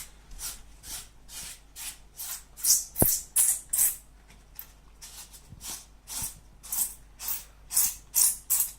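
Repeated rubbing strokes over a heat-softened EPO foam nose cone, smoothing the surface down, about two to three quick strokes a second. A single sharp click about three seconds in.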